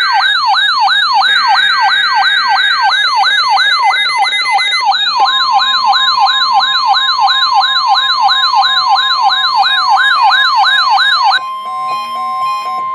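Weather radio alarm: a siren-like alert tone sweeping up and down about three times a second. From about five seconds in, the steady NOAA Weather Radio warning alarm tone, near 1,050 Hz, sounds under it. Near the end the sweeping stops and the steady alarm tone goes on alone, a little quieter.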